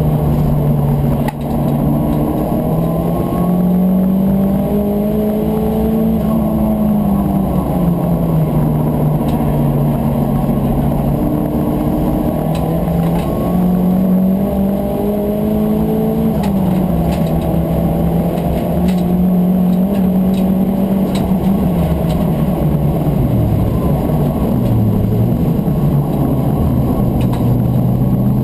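Turbocharged Volkswagen Corrado race car's engine heard from inside the cabin under hard racing, its note rising and falling as it revs up through the gears and drops on lifting off, with a short break in the sound about a second in.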